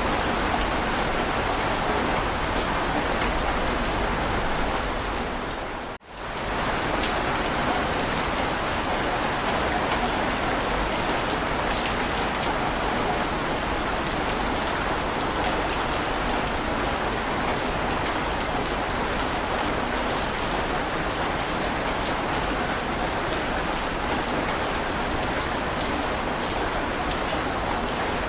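Heavy rain falling steadily, a dense even hiss. It fades out almost to silence for a moment about six seconds in, then comes straight back.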